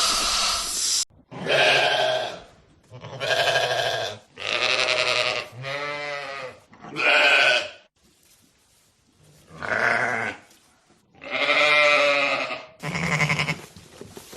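A steady hiss that cuts off about a second in, then goats bleating: about eight separate calls, each under a second long, one of them wavering in pitch.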